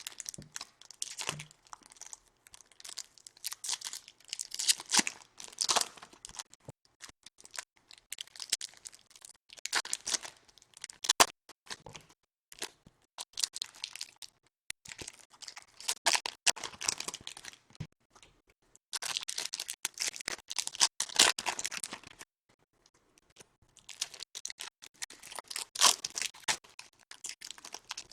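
Trading card packs being torn open and their wrappers crinkled, in repeated bursts of rustling with short pauses between and a few sharp clicks.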